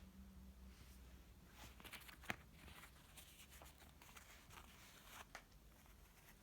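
Near silence with a faint low hum and a scattering of faint clicks and rustles, one a little sharper than the rest.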